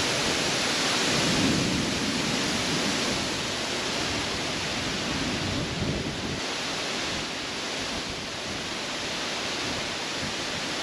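Gale-force storm wind gusting, a dense rushing noise that swells about a second and a half in and eases off gradually in the second half.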